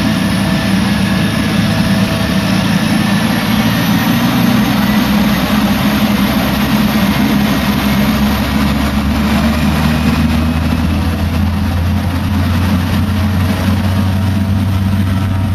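Small propeller plane's engine running steadily, heard from inside the cockpit as a loud, even drone. The low hum grows a little stronger about halfway through.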